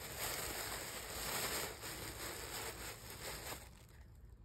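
Tissue paper rustling and crinkling as hands dig through it, dying away near the end.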